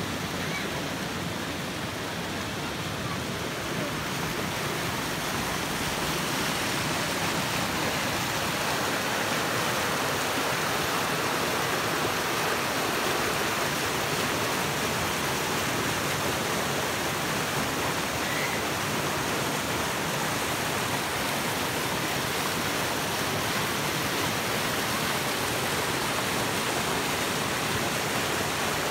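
Rocky mountain stream rushing and splashing over boulders in small white-water cascades, a steady rush that grows slightly louder about five seconds in.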